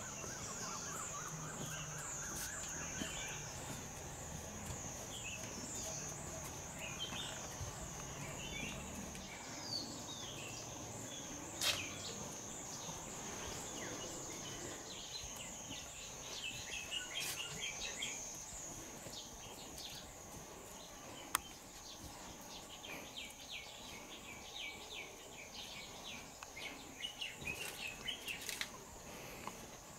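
Outdoor insect and bird ambience: a steady high-pitched insect drone that pulses a few times a second, with scattered bird chirps throughout. A few sharp clicks stand out, the loudest about twelve seconds in.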